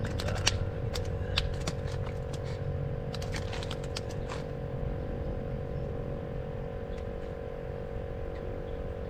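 A steady motor drone runs throughout. Several sharp clicks and rattles come in the first half, then stop.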